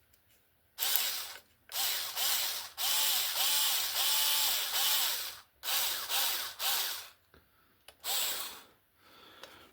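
Small power drill with a 2 mm bit run in about six short bursts, its motor speed rising and falling each time, clearing out the hinge holes of a 3D-printed plastic wagon body.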